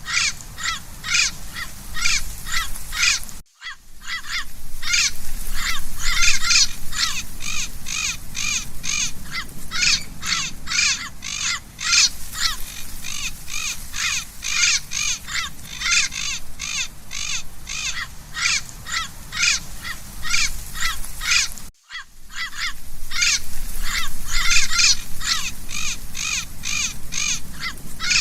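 Parrot calling in a rapid, unbroken series of harsh, repeated squawks, about three a second, broken twice by a brief gap.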